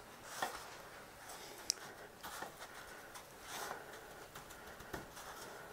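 Faint rustling of a chicken cutlet being pressed and turned by hand in a bowl of dry bread crumbs, with a few soft ticks and a sharper tick about two seconds in.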